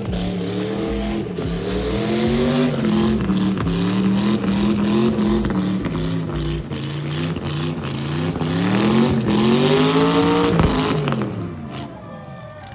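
Car engine revving hard, its pitch climbing and falling several times, with the longest and highest climb ending about ten seconds in before it drops away.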